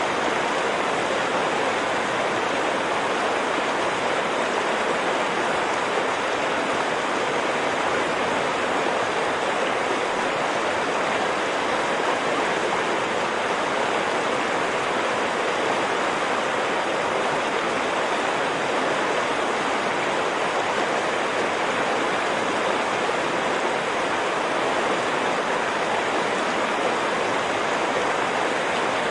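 Stream water running in a steady, even rush that does not rise or fall.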